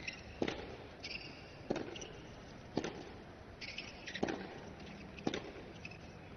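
Tennis baseline rally on a hard court: five crisp racket-on-ball strikes, about one every second and a quarter, as the two players trade groundstrokes.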